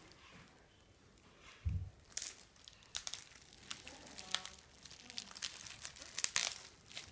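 Plastic film and packaging crinkling and tearing in quick irregular crackles as parts of an acrylic card case are handled and peeled. There is one soft low thump about two seconds in.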